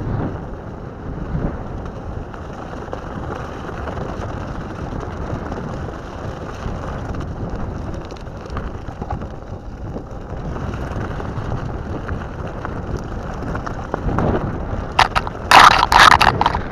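Knobby rubber tyres of an off-road electric skateboard rolling over wet gravel and dirt, a steady rough rumble at board level. About a second before the end comes a burst of loud scratching and rustling as the board pushes into a shrub and its branches brush against the camera.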